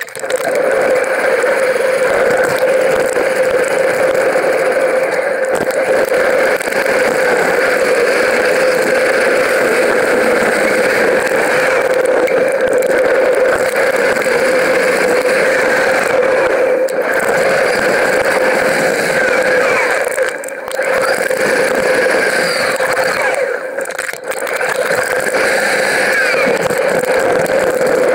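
Steady riding noise from a mountain bike on the move: wind rushing over the microphone and tyres rolling, with a constant hum under it. It dips briefly a few times in the second half.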